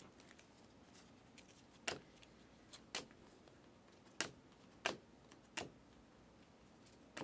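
Glossy Panini Select basketball cards being flipped one at a time through a handheld stack, each card's edge giving a short crisp flick, about six in all, roughly a second apart.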